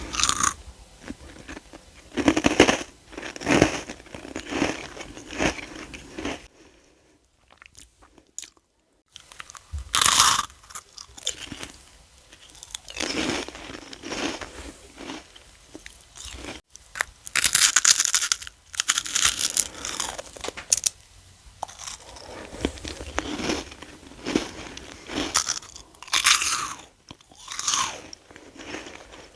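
Close-up eating of crunchy freeze-dried candy: repeated bites and chewing crunches, with a quiet pause of a couple of seconds about a third of the way in.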